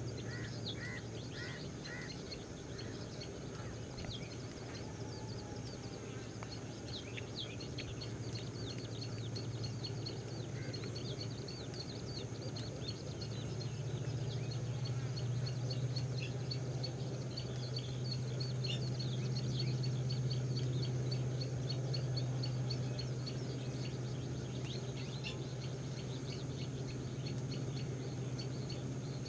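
Natural outdoor ambience: many short, high bird chirps scattered throughout over a steady high insect whine, with a steady low hum underneath that grows louder in the middle.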